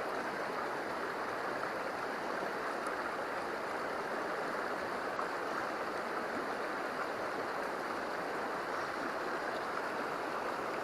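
River water running, a steady, even rush of current with no other events.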